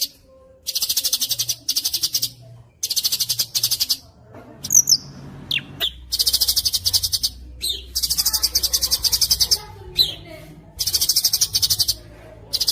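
Songbird singing fast, dense high-pitched trills in bursts of about half a second to a second and a half, repeated with short gaps, with a few quick sliding whistled notes in between.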